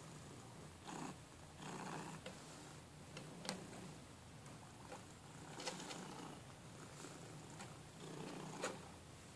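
Domestic cat purring steadily, the purr swelling and fading with each breath. Three sharp clicks break in, spread through the middle and near the end.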